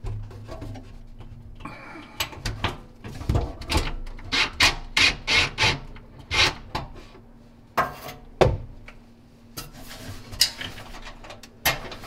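A DeWalt Atomic cordless driver with a flathead bit unscrewing the metal hold-down clips under a kitchen sink. The driver's motor runs briefly at the start, followed by a run of sharp irregular clicks, knocks and scraping as the bit, tubing guide and clips work against the sink rim and cabinet frame.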